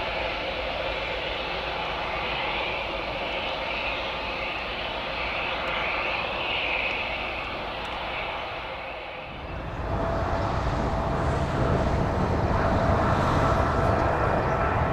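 Boeing 757-200F freighter's jet engines running with a steady high whine. About ten seconds in, a cut to a louder Boeing 777-200F freighter's GE90 engines on landing approach: a deep rumble with steady fan tones.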